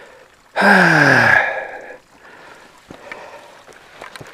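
A hiker's loud breathy sigh with a falling pitch, under a second long, the puff of effort on a steep uphill climb; then faint footsteps on the trail.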